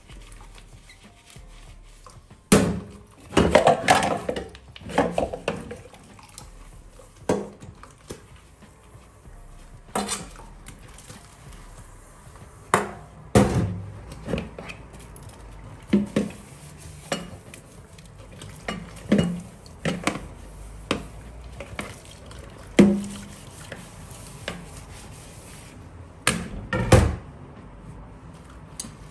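Dishes being washed by hand at a stainless steel sink: irregular clinks and knocks of bowls and utensils against each other and the sink, with a quick cluster of clatters a few seconds in.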